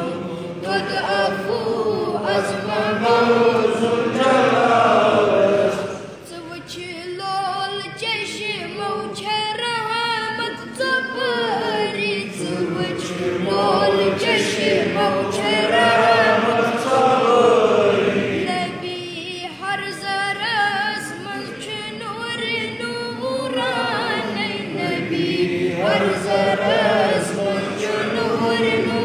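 A young boy singing a hamd, a devotional song praising God, in Kashmiri without instruments, his voice rising and falling in long melodic phrases.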